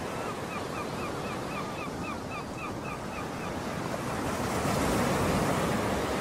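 Surf washing on a beach, with wind on the microphone; the wash swells louder near the end. In the first half a bird gives a quick run of about a dozen short, falling calls, about four a second.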